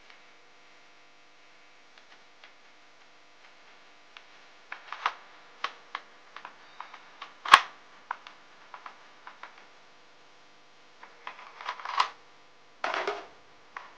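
Hard plastic toy-blaster shell parts clicking and knocking as they are handled and fitted together, with one sharp snap about halfway through.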